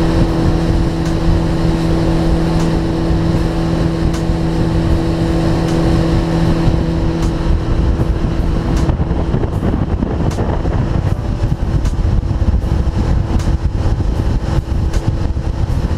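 Outboard motor pushing a small boat along at speed: a steady engine drone over rushing wind and water noise, with wind buffeting the microphone. The lower part of the drone drops away about nine seconds in while the rest runs on.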